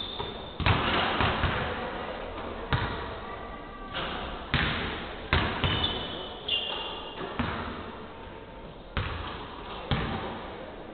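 Basketballs thudding on a hardwood gym floor during warm-up shooting and passing: about a dozen sharp thuds at irregular spacing, each followed by a long echo in the big hall.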